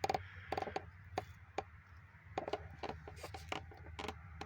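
Irregular light clicks and taps from a V6 rocker arm shaft assembly being handled and turned over, about a dozen scattered strokes, over a faint steady low hum.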